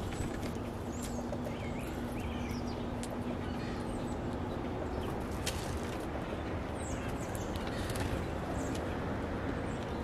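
Backyard ambience: a steady low rumble with a low hum for the first few seconds, scattered sharp clicks of birds pecking seed on a wooden feeder, and a few faint chirps from small birds about two seconds in and again past the middle.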